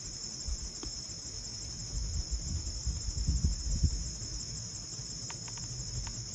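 Steady, high-pitched chorus of insects in a summer meadow, running without a break. A low rumble swells and fades in the middle.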